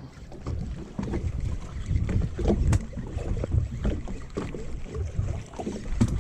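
Wind buffeting the microphone on a small fishing boat at sea, an irregular low rumble that swells and fades, with a few light knocks.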